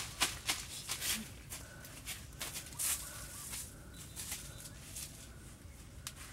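Leafy branches rustling, with scattered sharp snaps and cracks of twigs, thickest in the first second or so and thinning out later.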